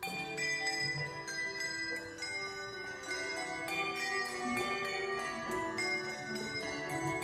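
Handbell choir playing a piece: many tuned handbells struck in quick succession, each note ringing on and overlapping the next. A group of bells is struck together right at the start, after a brief lull.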